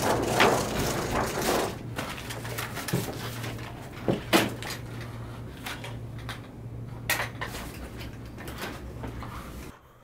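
Handling and movement noise from a person carrying a backpack: rustling in the first couple of seconds, then a few sharp clicks and knocks, the loudest a little after four seconds, over a low steady hum that cuts off near the end.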